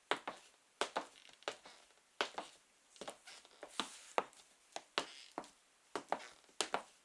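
Black Steve Madden high-heeled sandals tapping on a wooden floor in slow, even steps, about one and a half crisp heel clicks a second.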